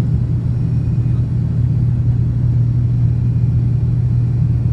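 Turboprop airliner's engine and propeller running in flight, heard from inside the cabin: a loud, steady low drone with a strong even hum from the propeller.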